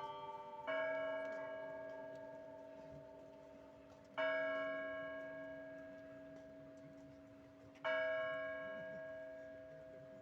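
A church bell struck three times, slowly, about three and a half seconds apart, each stroke left to ring and fade. At the start, smaller bells from a quicker peal are still ringing out.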